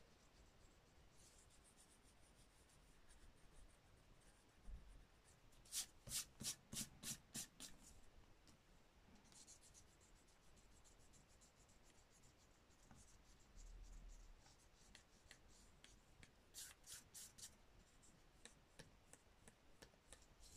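Faint back-and-forth strokes of a block eraser rubbing pencil lines off a watercolour painting on paper, in runs of about three strokes a second, about six seconds in and again near seventeen seconds, with softer single strokes between.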